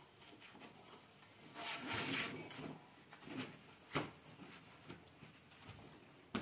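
Thick, dense fabric rustling as a metal frame tube is worked through the sewn loops of a folding camping kitchen's cover, with a longer rustle about two seconds in. Sharp knocks of the tube against the frame come about four seconds in and again at the end.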